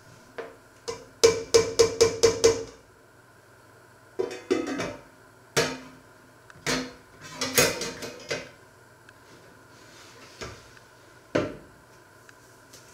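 A metal ladle knocked quickly against a stainless steel pot, about six ringing taps in a row. Then come several clatters of the metal lid going onto the pot and the pot being moved on the stovetop, and a couple of single knocks near the end.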